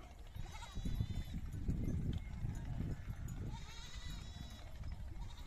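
Goats and sheep of a mixed herd bleating, two calls about three seconds apart, over a steady low rumble.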